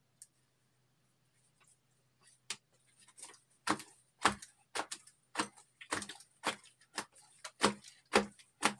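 Fluffy shaving-foam slime being stretched and squeezed by hand, giving sharp wet pops and crackles about twice a second, starting a couple of seconds in.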